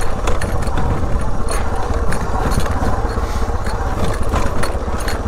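Suzuki DR dual-sport motorcycle's single-cylinder engine running steadily while riding off-road, with wind rumble on the microphone and frequent short clicks and knocks over the rough ground.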